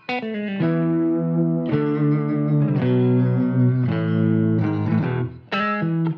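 Instrumental background music: a guitar with effects plays held chords, then shorter picked notes near the end.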